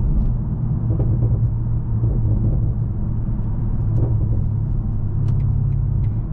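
BMW M550i's twin-turbo V8 and road noise heard from inside the cabin: a steady low drone while cruising, with a few faint exhaust pops about five seconds in.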